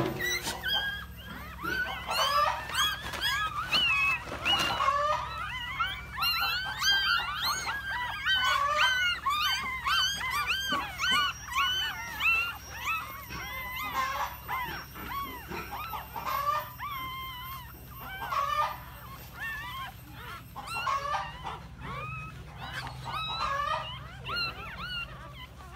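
Litter of newborn puppies crying: many short, high squeaks and whines overlapping one another, thinning out in the second half.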